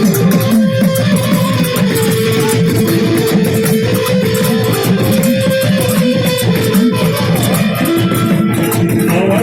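Indian banjo (bulbul tarang), a keyed plucked-string instrument, playing an instrumental melody of long held and stepping notes.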